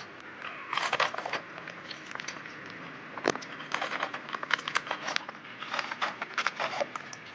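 Close-up crunching and crackling of food being bitten and chewed: many irregular sharp crunches.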